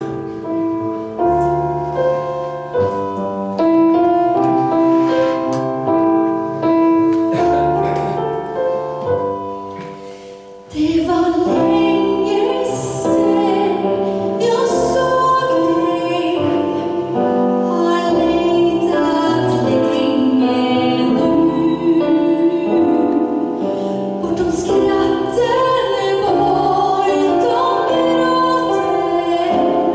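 Small swing band playing live: a piano introduction that grows quieter, then about eleven seconds in a woman starts singing a ballad in Swedish over the piano and band.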